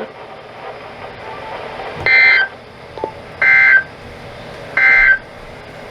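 Three short EAS digital data bursts, the raspy warbling SAME tones that mark the end of an alert message, each about half a second long and roughly 1.4 seconds apart, over a low background hiss from the radio feed.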